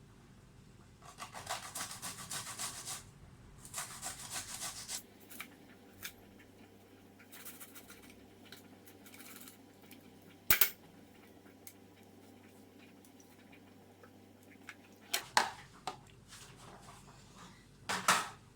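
Garlic cloves being grated on a hand grater: two runs of quick rasping strokes, then scattered light clicks and a few sharp knocks.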